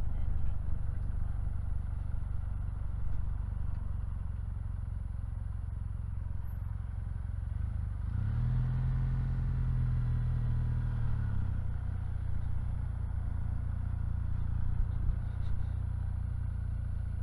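Kawasaki W800's air-cooled parallel-twin engine running as the bike is ridden at low speed, with a steady low rumble. About halfway through the engine note rises and holds for a few seconds, then drops back.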